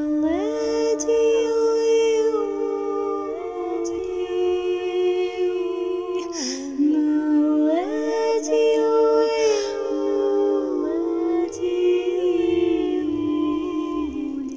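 Wordless vocal music: a voice singing slow, held notes that slide smoothly from one pitch to the next, with audible breaths between phrases.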